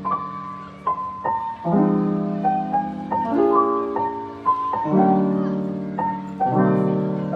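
Lo-fi background music: piano chords struck about every second and a half, each fading away, with short higher notes between.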